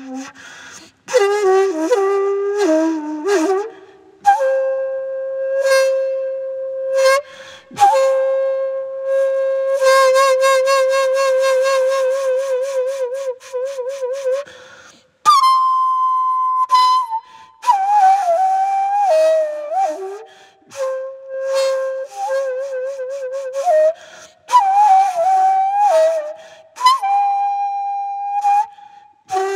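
Daegeum, the Korean large bamboo transverse flute, playing sanjo. Long held notes swell into a wide, deep vibrato, with sliding bends and ornamented turns. Phrases are broken by short breath pauses, and a sharp high entry comes about halfway through.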